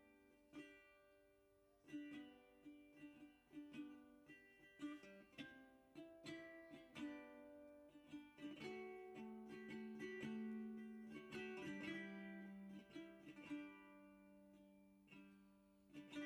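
Faint background music of a plucked string instrument picking out single ringing notes, with a longer held chord about halfway through.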